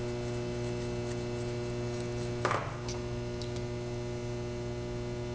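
Steady electrical mains hum, with one light tap about halfway through.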